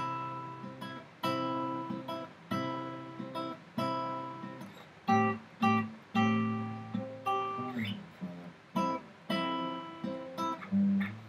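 Acoustic guitar played in strummed chords, each chord struck sharply and left to ring out before the next.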